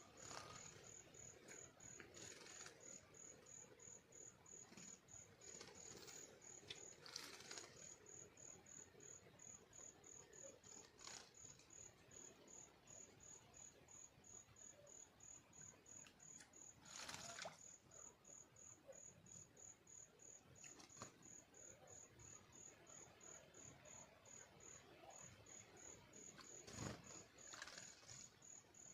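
Cricket chirping steadily, a short high chirp repeated about three to four times a second, faint. A few brief soft swishes break in now and then, the clearest about midway and near the end.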